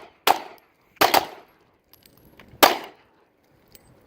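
Handgun shots from two shooters firing on command, four in all: one just after the start, a quick pair about a second in, and one more about a second and a half later. Each is a sharp crack with a short echo.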